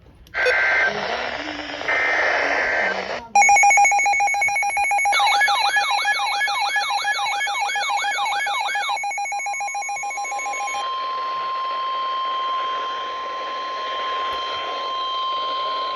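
NOAA Weather Radio emergency alert for a severe thunderstorm warning. It opens with the screeching digital header data bursts. A loud alarm follows: steady buzzing tones with a warbling sweep about two and a half times a second. Then comes the long steady single-pitch warning alarm tone.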